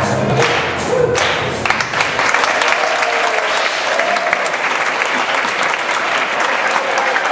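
Audience applauding, with music ending in the first second or two as the clapping carries on.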